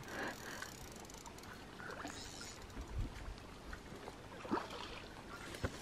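Faint splashing and sloshing of water, with a few soft knocks.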